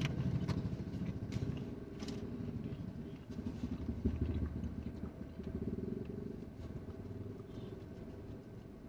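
Faint low rumble of road traffic heard from inside a car, swelling about four seconds in, with a few light clicks.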